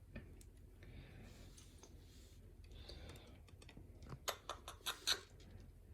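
Small metal lock parts being handled as a pin-tumbler lock is taken apart: faint handling sounds, then a quick run of about five light clicks near the end.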